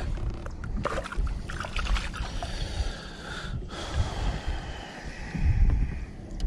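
Water splashing and sloshing against the side of a boat as hands work in the water and pull weeds off a fishing lure, over a low rumble.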